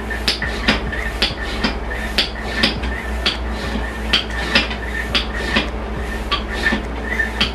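Hand pump on a vacuum compression bag worked up and down, sucking the air out of the bag: a sharp click or clack with each stroke, about twice a second.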